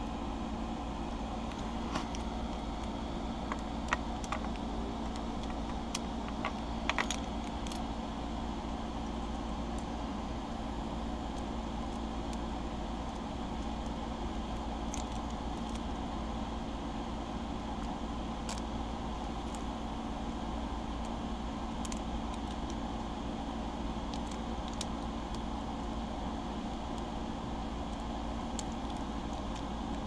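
Light metallic clicks and jingling of keys on a ring as a brass five-pin lock cylinder is handled with a small tool to press out its retaining pin and spring during rekeying, over a steady background hum. The clicks are few and scattered, a little louder about four and seven seconds in.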